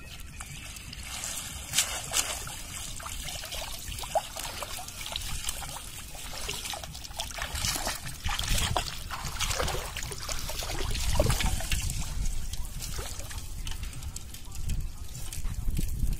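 Water draining and dripping from a bamboo box fish trap as it is lifted out of shallow floodwater, with splashing and sloshing, and two sharper knocks about two seconds in.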